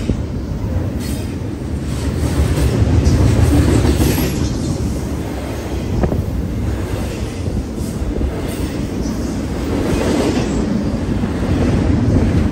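Double-stack intermodal freight train's container well cars rolling past at close range: a steady rumble of steel wheels on rail that swells and eases, with a few sharp clacks.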